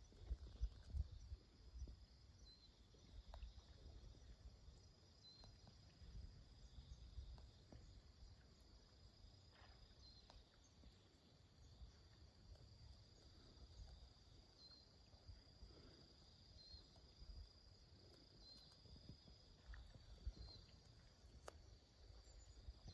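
Faint insect chorus from the surrounding woods: a steady high-pitched drone with a short chirp repeating every few seconds, over a soft low rumble.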